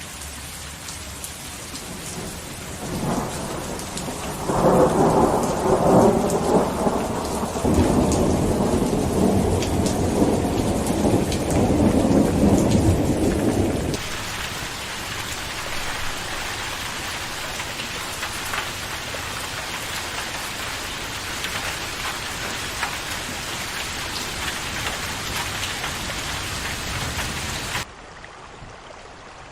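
Steady rain falling, with a long roll of thunder that builds from about three seconds in and cuts off abruptly about halfway through. The rain continues after it, then the sound drops suddenly to a quieter, duller rain near the end.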